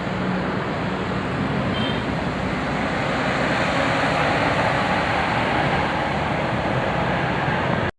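Road traffic noise: engines and tyres of passing vehicles, growing a little louder a few seconds in, then cutting off abruptly near the end.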